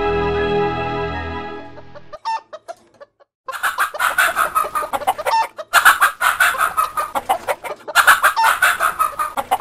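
Instrumental intro music fading out, then a Blue Laced Red Wyandotte hen clucking and squawking in loud, rapid runs of about two seconds each.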